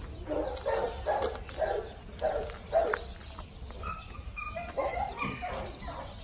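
Dog barking in a string of short barks, about two a second, over the first three seconds, followed by a few thinner, higher calls around four to five seconds in.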